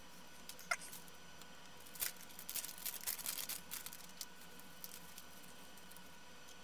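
Clear plastic parts bag crinkling and rustling as it is handled, in a cluster of crackly rustles from about two seconds in that lasts about two seconds. A single light click comes just before.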